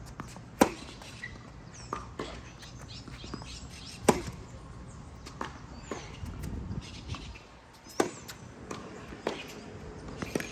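Tennis ball hit with a racket in a baseline groundstroke rally on a hard court. Three loud, crisp hits about four seconds apart come from the near player, with fainter ball bounces and hits from the far end between them.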